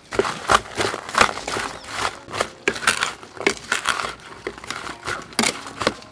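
Wooden spoon tossing chopped rose apple pieces with sugar and chili in a bowl: quick, irregular scrapes and clacks of the crisp fruit chunks, several a second.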